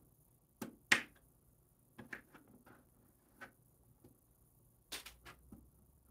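Kitchen knife chopping potatoes into small cubes on a plastic cutting board: irregular sharp taps of the blade on the board, the loudest about a second in and a quick cluster near the end.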